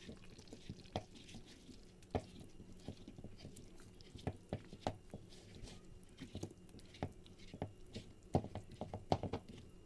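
Wooden masher mashing thick, well-cooked chicken haleem in a pressure-cooker pot: irregular soft wet squelches and knocks, coming faster near the end.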